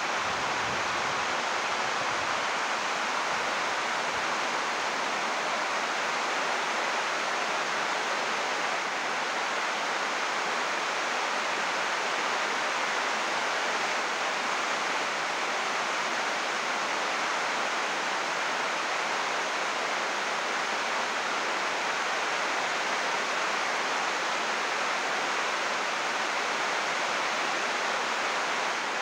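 Heavy rain falling on a greenhouse roof of 80-micron UV plastic sheeting, a steady, even hiss that does not let up.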